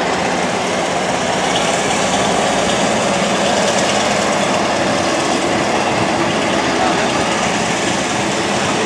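Passenger coaches of a departing train rolling past, a steady noise of wheels running on the rails.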